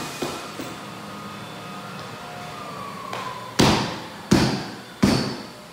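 Hammer blows: three loud, evenly spaced strikes in the second half, about two-thirds of a second apart, each ringing briefly, after a few lighter taps. They fit the repair of a floorboard.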